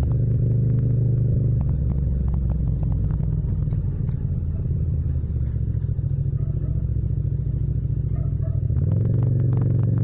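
Yamaha MT-07 parallel-twin motorcycle engine running while riding at modest speed, a steady exhaust note that gets louder about nine seconds in.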